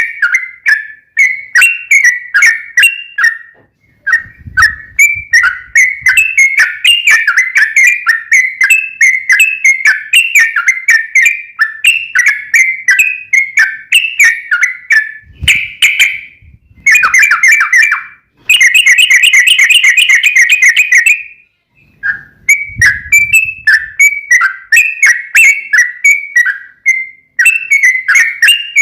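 Yellow-vented bulbul (trucukan) singing a long, rapid run of bright chattering whistled notes, many a second, with a few brief pauses. About two-thirds of the way through it breaks into a faster, tighter trill. Faint low thumps sound a few times underneath.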